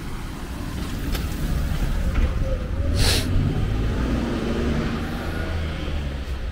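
A motor vehicle's engine rumble passing by, swelling to a peak around the middle and then easing off, with a short sharp hiss about three seconds in.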